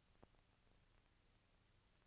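Near silence: a faint steady hiss, with one small click near the start.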